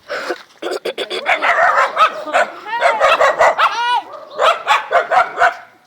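Dog barking in quick runs of short, sharp barks, with a few high whining yelps that rise and fall in pitch near the middle.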